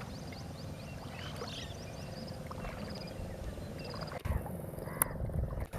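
Many short calls from mixed birds in a mangrove forest, chirps and whistled notes following one another over a low rumble, with a sharp click or two near the end.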